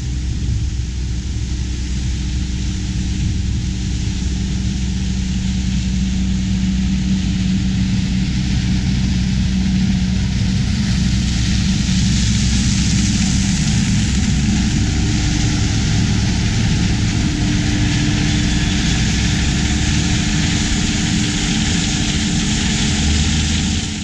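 Cat Lexion 585R combine harvester running while harvesting corn with its 12-row corn head, with the grain-cart tractor running alongside: a steady engine and machinery drone. It grows louder about halfway through as the machines come close.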